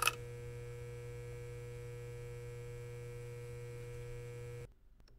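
Neon sign's electrical hum: a brief crackle as it lights, then a steady buzzing hum of several fixed tones that cuts off suddenly near the end.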